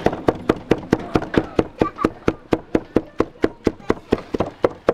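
Large chef's knife chopping roasted lamb meat on a thick wooden chopping board: quick, even knocks of the blade hitting the wood, about five a second.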